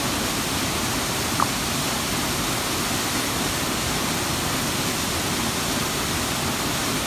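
Waterfall rushing steadily. A brief high-pitched sound rises about a second and a half in.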